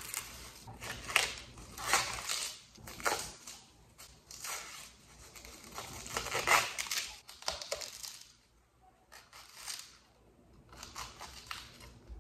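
Dry, papery outer skins and dried tops of a freshly harvested onion being peeled and torn off by hand, crackling and rustling in quick irregular strokes that thin out to a few scattered ones after about eight seconds.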